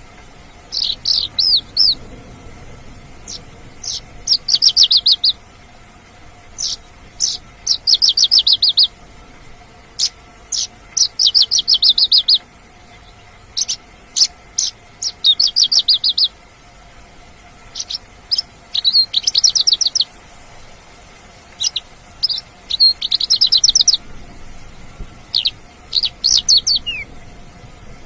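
Mongolian lark singing energetically: high-pitched phrases of rapid trilled notes about a second long, repeated again and again, with single sharp notes between them and brief pauses.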